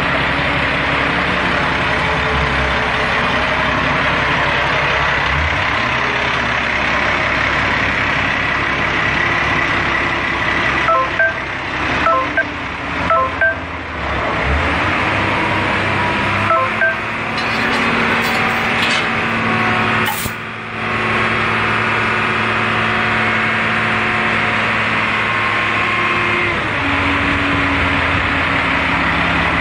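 Large Komatsu diesel forklift engine running steadily, with series of short electronic beeps about a third and about halfway through.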